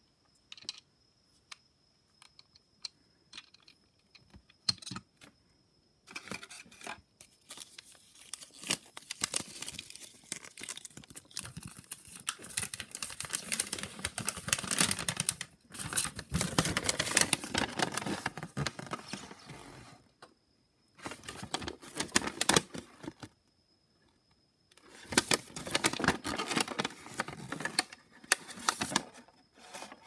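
A few light plastic clicks as the toy bus alarm clock is handled, then long stretches of crinkling and rustling as a paper instruction sheet is handled, broken by short quiet gaps.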